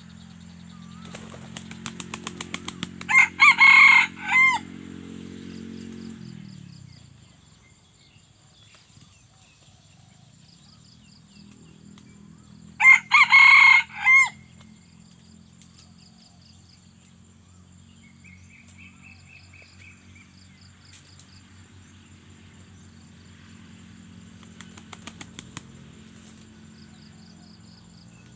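A junglefowl cock crowing twice, loud, the first crow led in by a quick run of wing claps; another burst of wing clapping comes near the end. A low steady hum runs beneath.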